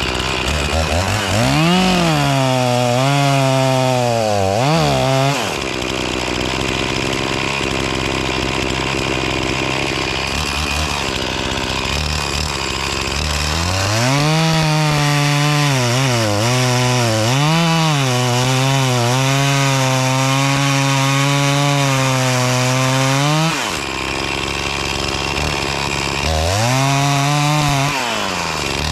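Echo CS-490 two-stroke chainsaw cutting a felling notch into a tree trunk. It revs up and cuts for a few seconds about a second in and drops back to idle. It cuts again for about ten seconds from the middle, its pitch dipping as the chain loads in the wood, then revs into a third cut near the end.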